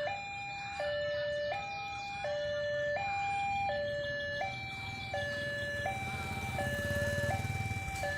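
Electronic two-tone warning siren of a railway level crossing, switching between a higher and a lower tone about every 0.7 seconds. A low rumble grows louder over the last two seconds.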